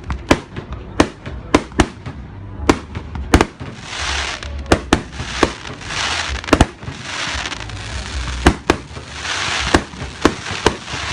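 Fireworks display: a rapid string of sharp bangs from bursting shells, about one to two a second, with stretches of hissing between them, the loudest around four, six and nine seconds in.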